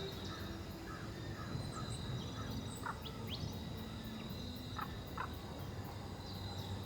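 Woodland birds chirping, with scattered short calls now and then, over a steady low background noise.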